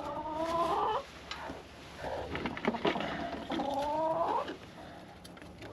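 Hens in a chicken coop calling: two drawn-out, wavering calls of about a second each, one at the start and one about three and a half seconds in, with light rustling and clicks between.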